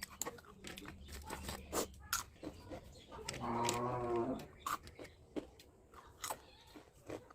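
Eating sounds: wet chewing and biting with sharp clicks and smacks. About halfway through comes one drawn-out pitched call lasting about a second.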